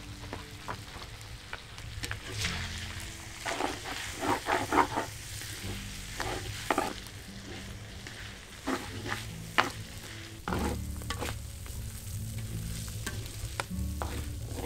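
Chopped pork sizzling in a steel wok, with a spatula scraping and knocking against the wok in short clusters of strokes.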